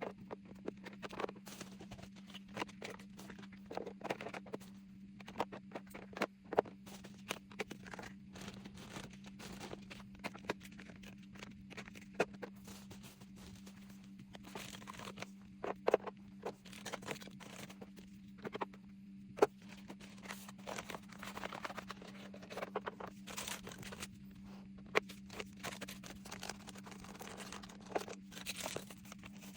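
Small objects being handled and set down on a table: scattered clicks, taps and crinkly rustling, over a steady low hum.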